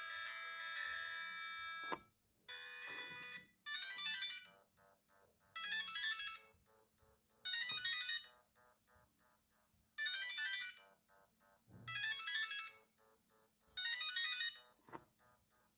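Siemens CXT65 mobile phone playing its ringtones through its small loudspeaker. A melodic tone breaks off about two seconds in; after a short note, the next ringtone repeats a bright, jangling ringing phrase of about a second, roughly every two seconds, with fainter lower notes in between.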